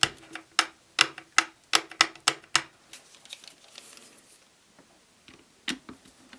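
Hard plastic parts of an electric kettle clicking and knocking as they are handled and fitted together during reassembly. A quick run of sharp clicks, two or three a second, for about two and a half seconds, then fainter taps and one more click near the end.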